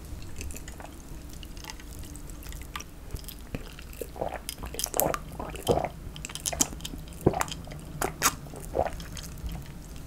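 Close-miked drinking of cider, a carbonated Korean lemon-lime soda, from a glass. Starting about four seconds in there is a run of wet gulping swallows and mouth clicks, roughly two a second, which stop about a second before the end.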